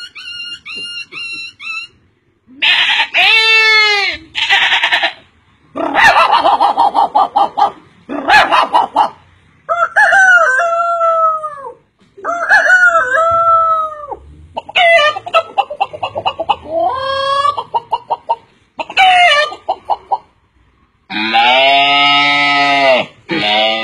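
A man imitating animal calls with his voice: first a quick run of short peeps, about four a second, then a string of separate calls a second or two long that bend up and down in pitch, the longest and loudest near the end.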